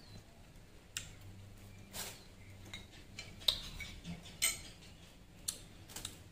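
A metal spoon clinking against a ceramic bowl, about half a dozen light, separate clicks spaced irregularly about a second apart.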